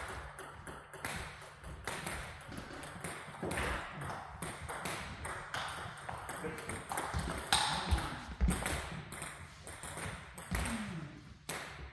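Table tennis balls clicking back and forth off bats and tabletops in rallies at two tables at once, a quick, irregular stream of sharp ticks.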